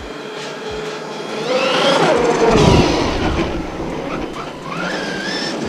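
An RC truck's Surpass Hobby 4076 2200 kV brushless motor whining on a full-throttle speed run with a 4S battery. The whine rises to its loudest about two and a half seconds in and falls away as the truck passes, and a second rising whine comes near the end.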